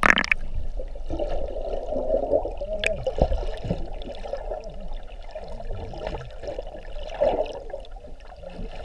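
Sea water heard from underwater through an action camera's housing: a muffled, continuous sloshing and bubbling with a few faint clicks, after a brief splash at the very start as the camera goes under.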